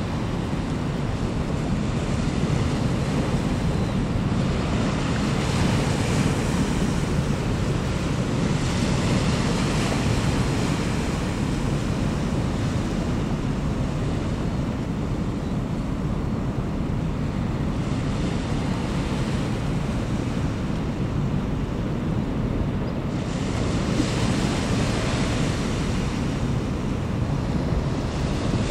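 Wind buffeting the microphone, with small waves washing onto a stony shore; the hiss swells up twice.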